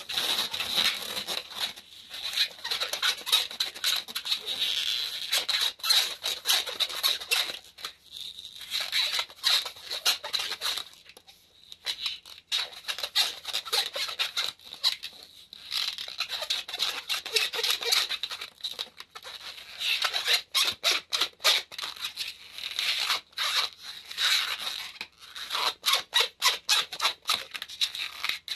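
Thin white 160 latex modelling balloon being twisted into a chain of small bubbles, the rubber squeaking and rubbing against itself in quick irregular runs with a few short pauses. The twists are given extra turns so they do not spin back loose.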